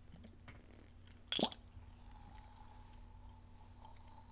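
Soda being drunk from a Ramune marble-stopper bottle: quiet liquid and mouth sounds, with one short sharp sound about one and a half seconds in.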